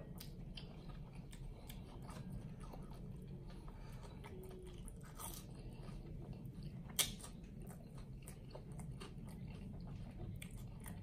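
Close-miked chewing of a mouthful of hot dog in a soft bun, lips closed, with many small mouth clicks and one sharper click about seven seconds in.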